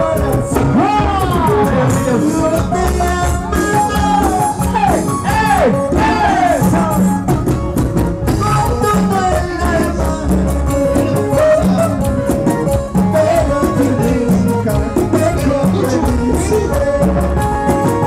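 Live band playing Andean folk music over a steady beat: singing with guitar and drums, loud through the stage sound system.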